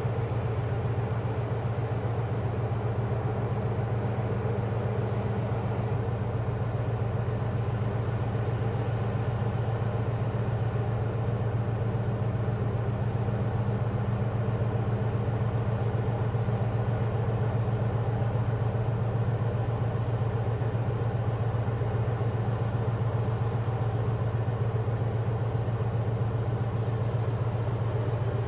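Steady low engine drone of a large container ship passing on the river: an even, deep hum that does not change.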